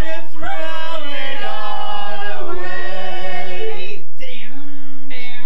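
A small group of men singing a cappella in harmony, several voices over a low held note, with a brief break about four seconds in.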